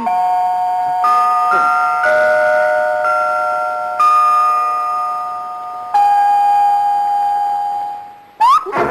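Film score: slow bell-like chiming notes, a new note struck roughly every second or two, each ringing on and slowly fading. Near the end comes a quick rising swoop, and busier music begins.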